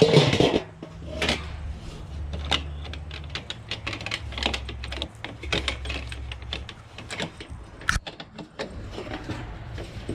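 An irregular clatter of sharp clicks and knocks, loudest right at the start, over a low, uneven rumble.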